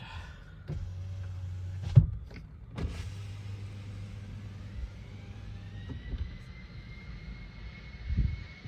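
Inside an airliner cabin: a steady low hum, a sharp knock about two seconds in, then a high jet-engine whine that rises from about five seconds in and levels off, as the engines spool up.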